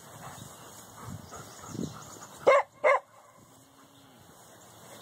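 A dog barking twice, two short loud barks about half a second apart.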